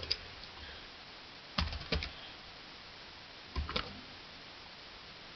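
Computer keyboard keys being typed, in a few short clusters of keystrokes about two seconds apart.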